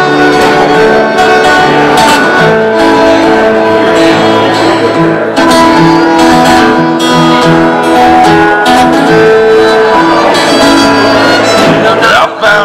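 Live fiddle and acoustic guitar playing a tune together, the fiddle's held notes over the plucked guitar.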